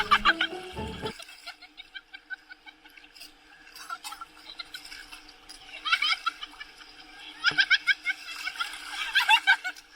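People laughing and giggling in several short, high-pitched bursts, after background music cuts off about a second in.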